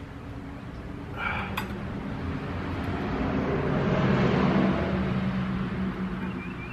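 A passing motor vehicle, its sound rising to a peak about four seconds in and then fading, over a steady low hum. A short clink comes about a second in.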